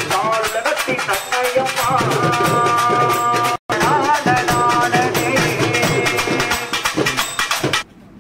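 A group of stick-played barrel drums in a fast, dense rhythm, with sustained and gliding wailing tones over the drumming. The sound cuts out for a split second about halfway through, and all the playing stops abruptly near the end.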